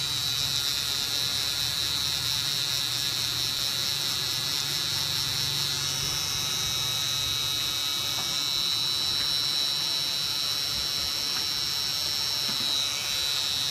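Permanent-makeup tattoo pen buzzing steadily with a high-pitched whine while tattooing eyebrows. The whine shifts slightly in pitch about halfway through.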